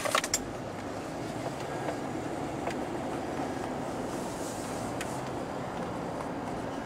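Pickup truck driving: a steady rumble of engine and road noise, with a few light clicks right at the start and one more about five seconds in.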